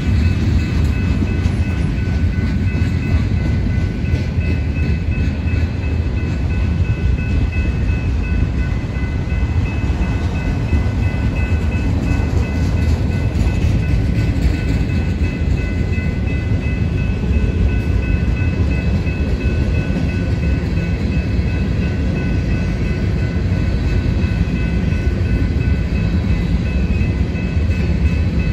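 Freight train of covered hoppers and autorack cars rolling past close by: a loud, steady rumble of wheels on rail, with a steady high ringing tone over it.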